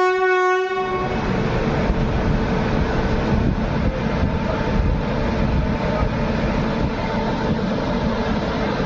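Indian Railways WAP-7 electric locomotive's horn blasts once and cuts off under a second in, followed by the steady rumble of the express train moving.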